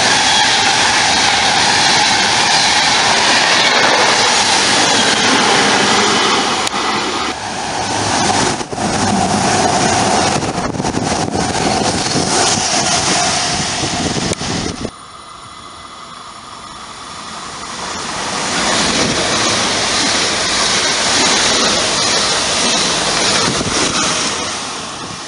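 Electric passenger trains passing close by at speed: a locomotive-hauled Intercity train's coaches rush past with a steady tone above the wheel and wind noise. Then it cuts off abruptly, and a second electric train comes up and passes loudly, fading near the end.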